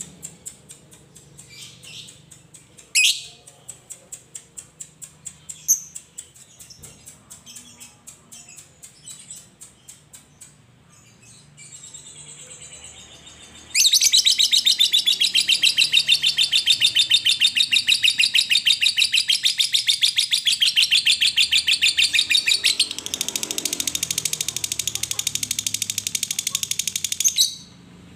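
Fischer's lovebird giving sparse ticking calls with a few sharp chirps, then about halfway through breaking into a loud, rapid, unbroken chattering trill (the long 'ngekek') that lasts about fourteen seconds, its tone shifting slightly before it stops abruptly.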